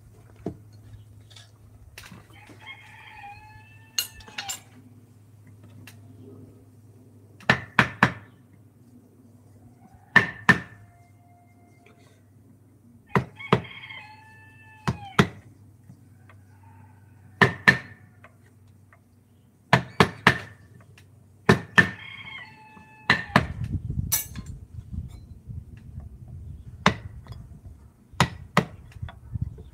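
Sharp wooden knocks, mostly in pairs every two or three seconds, typical of a mallet striking a carving chisel. A rooster crows three times in the background.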